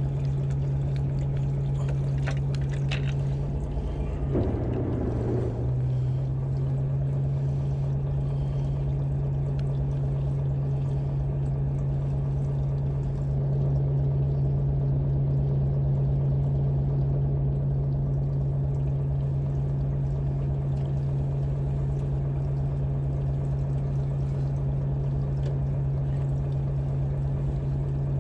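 Boat engine running with a steady hum. A brief rushing noise comes about four to five seconds in, and there are a few light clicks just before it.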